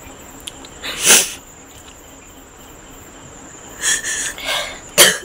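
A person crying between words: a sharp sniff about a second in, then shaky sobbing breaths and another sniff near the end. A faint steady high-pitched whine runs underneath.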